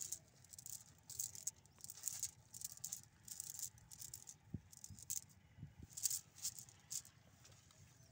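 Rustling and crackling of a cast net's mesh and the grass under it as hands work fish out of the net, in irregular short bursts, with a couple of soft low thumps near the middle.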